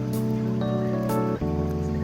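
Background music: sustained chords changing about every half second over a steady beat, with guitar.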